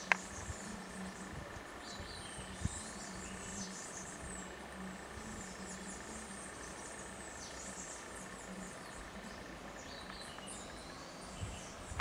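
Tropical forest ambience: many birds chirping and whistling over a steady high insect trill, with one sharp click right at the start.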